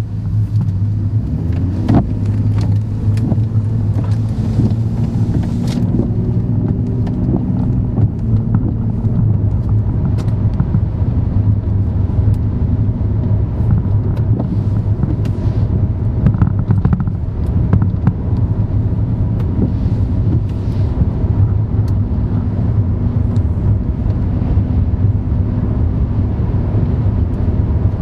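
A moving car heard from inside the cabin: steady low road and engine rumble, with sharp knocks about two and six seconds in.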